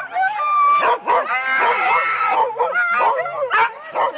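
Several harnessed Siberian huskies yipping, whining and howling over one another, with sharp barks now and then: sled dogs excited and eager to run at a race start.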